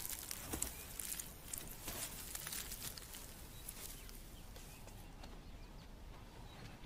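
Faint scuffling and scraping of an African wild dog moving about its den, light irregular clicks and scrapes that thin out after about three seconds.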